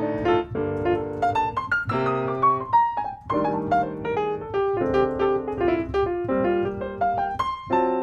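Sampled nine-foot concert grand piano in the Pianoverse plugin, played from a keyboard: jazz chords struck every second or so, with a melody line moving above them.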